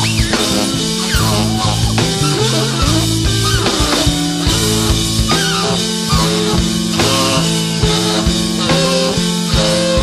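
Live band playing an instrumental passage, with electric guitar lines bending in pitch over sustained bass notes and a drum kit.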